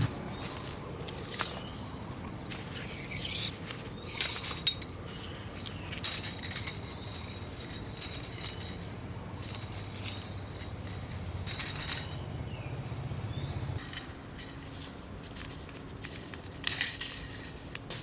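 Scattered knocks and metallic clinks, with short high chirps now and then and a low steady hum that stops about fourteen seconds in.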